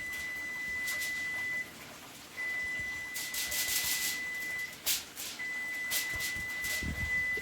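An electronic beeper sounding a steady high-pitched tone in three long beeps of about two seconds each, with short gaps between them. Brief hissing bursts come in between the beeps.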